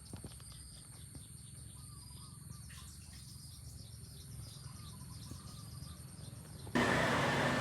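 Outdoor ambience of insects and birds chirping over a low rumble, with repeated short chirps and a steady high insect tone. Near the end it cuts abruptly to a much louder steady mechanical hum and hiss.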